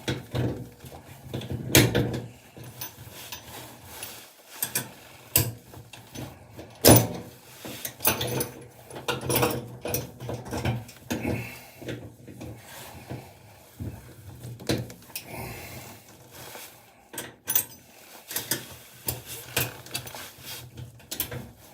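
Spanner clicking and knocking against metal bolts on a washing machine in irregular bursts as the bolts are worked loose.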